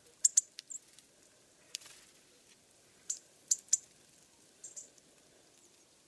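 Small songbirds giving short, very high call notes in quick clusters of two to four, with a single longer, rougher note about two seconds in.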